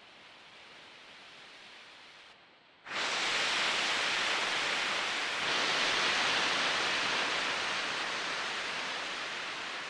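Steady rushing water noise, like surf or a waterfall, fading in faintly and then jumping much louder about three seconds in.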